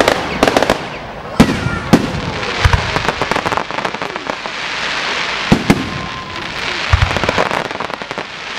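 Fireworks going off: a run of sharp bangs at uneven intervals, with a crackling hiss between them as glittering stars burst.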